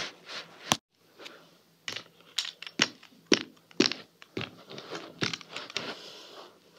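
Irregular sharp knocks and clicks of small objects being handled and set down on a carpet by hand, about two a second, after a brief dropout under a second in.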